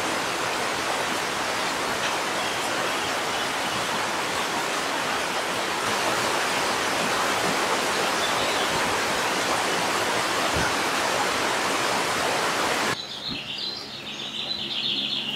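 Rain pouring down steadily, a dense even hiss that cuts off about thirteen seconds in. After it stops, a bird chirps briefly.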